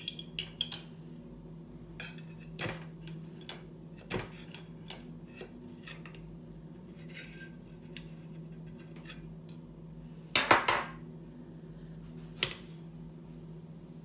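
Metal forks clinking and scraping against the rim of an upturned glass bowl and the plate under it as the bowl is worked loose from a freshly microwaved clootie dumpling. The clinks come in short, irregular bunches, the loudest about ten seconds in.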